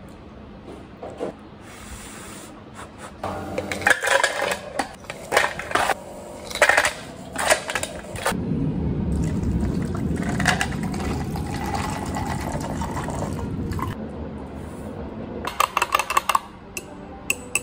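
Ice cubes clattering and clinking into a plastic mason jar in several bursts, followed by a steady whirring noise for about five seconds and a few more clinks near the end.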